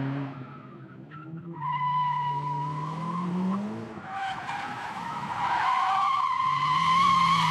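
AI-generated crash sound effect of a heavy truck engine revving, its pitch climbing over the first few seconds. From about a second and a half in, a long high screech like skidding tyres or crushing metal joins it and grows louder toward the end.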